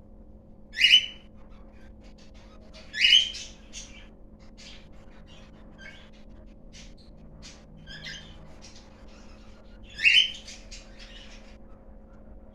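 A bird calling: three loud, short squawk-like calls, about a second in, about three seconds in and about ten seconds in, with many faint short chirps between them.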